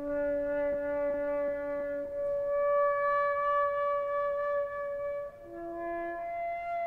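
Background music of long held notes with rich overtones. A lower note drops out after about two seconds, and a new, higher pair of notes takes over about five seconds in.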